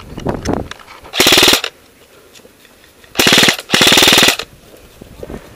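Airsoft rifle, a KWA CQR fitted with a PolarStar high-pressure-air engine, firing three short full-auto bursts of rapid, even shots: one about a second in, then two in quick succession around three to four seconds in.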